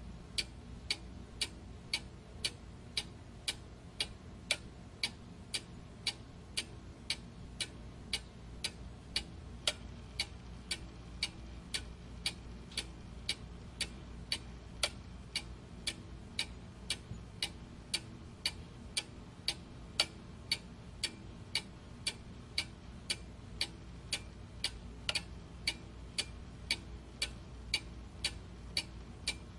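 Steady, even ticking, about two ticks a second, over a faint low hum.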